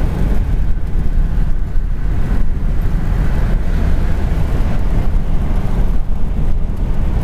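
Steady, loud low rumble of a car driving at highway speed, heard from inside the cabin, with road and engine noise and no distinct events.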